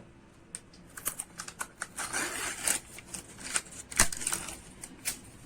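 Kitchen spoon clicking and scraping against containers as vanilla yogurt and lemon juice are added to the milk mixture: small irregular clicks, a stretch of scraping in the middle, and a sharp knock about four seconds in.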